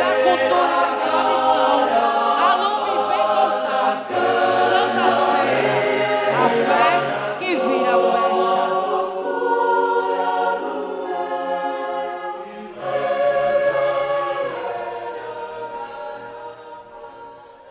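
A choir of many voices singing sustained chords, fading out near the end.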